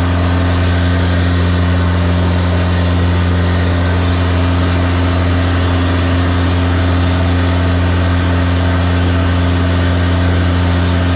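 High-pressure drain jetting machine running steadily, a loud, even low hum that holds one pitch.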